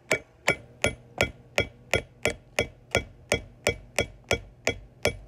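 Hammer striking a steel chisel set into a geode, about three even, ringing metal-on-metal strikes a second, chipping into the rock to crack it open.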